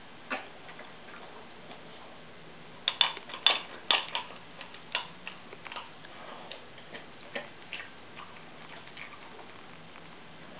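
Dog eating dry kibble from a stainless steel bowl: sharp crunches and clicks of kibble and teeth against the metal, densest about three to four seconds in, then scattered.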